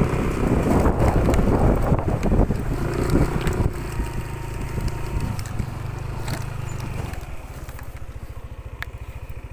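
An engine running steadily with a regular low throb; the first few seconds are busier and louder.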